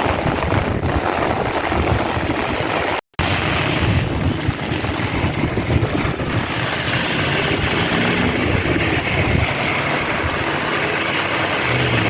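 Steady rush of wind buffeting the microphone over the hiss of light rain, with a brief dropout about three seconds in.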